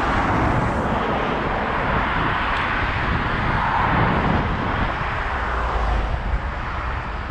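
Steady roar of road traffic, swelling to its loudest about halfway through and easing off near the end.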